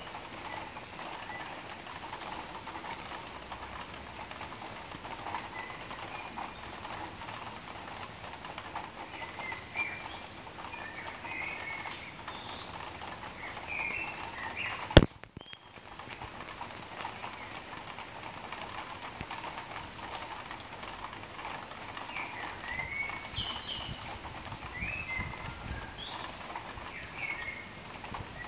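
Outdoor night ambience under a thunderstorm sky: a steady hiss with scattered short, high chirping calls. A single sharp click about halfway through is the loudest sound, and the sound drops out briefly just after it.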